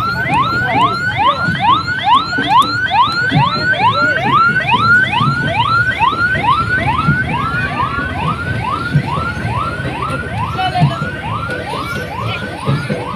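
Electronic siren sounding a fast, repeating rising whoop, about three sweeps a second, with low thumps about once a second beneath it.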